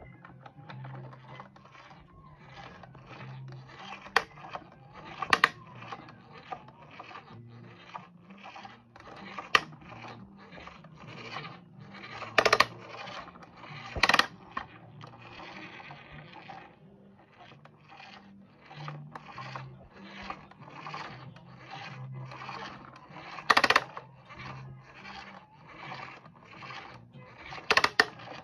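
Plastic Postman Pat toy van pushed by hand over a laminate floor. Its wheels rub and scrape, with many irregular clicks and about seven sharper, louder knocks.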